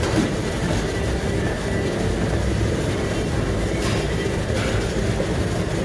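Treadmill in use: a steady rumble from the drive motor and the moving belt.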